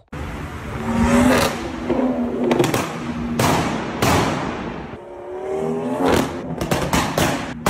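BMW M140i's B58 turbocharged straight-six revving hard in a tunnel. The engine note rises several times, broken by sharp exhaust cracks and bangs that echo off the walls, several in quick succession near the end.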